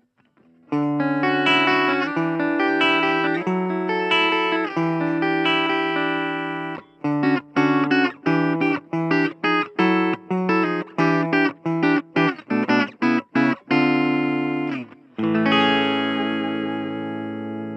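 Electric guitar (Suhr Classic Pro) through a Blackstar Fly 3 mini amp on its clean channel, with the ISF tone control at its middle setting. It plays ringing strummed chords, then a run of short, choppy muted chord stabs, and ends on one chord left to ring out and fade.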